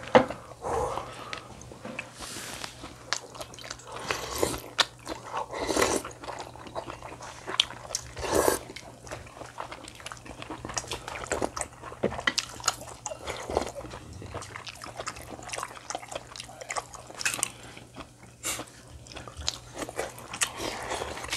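Close-miked eating at a table: chewing and biting on food, with many scattered light clicks of chopsticks and spoon against dishes.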